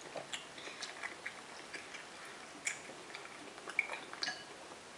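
Faint, scattered small clicks and taps of eating: chewing close to the microphone, and a wooden spoon and fork touching the dishes.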